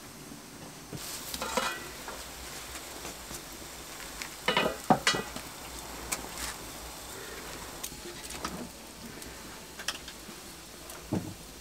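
Metal cooking pot of goat rib meat boiling over a wood fire, with scattered knocks and clinks as the lid comes off (the loudest about halfway through) and a wooden spoon scraping while the foam is skimmed, over a steady low bubbling hiss.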